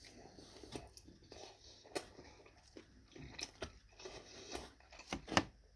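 Close-up chewing and biting of pizza crust, irregular crunchy bites and mouth noises.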